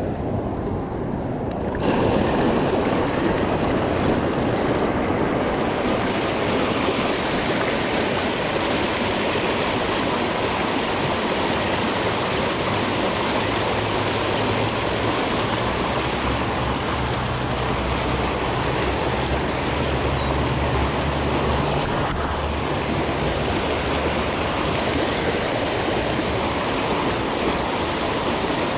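Water rushing over a low dam spillway, a steady whitewater rush close by, stepping up in loudness about two seconds in.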